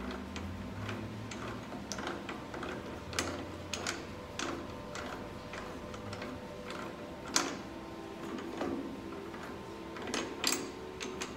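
Irregular metallic clicks and ticks of a chuck key working the geared Jacob's chuck on a lathe tailstock, tightening a center drill in its jaws. The loudest clicks come a little past the middle and again near the end.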